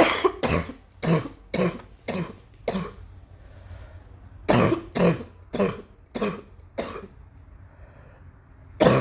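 Repeated coughing in fits: about six coughs in quick succession, a pause, then about five more, and another cough starting near the end.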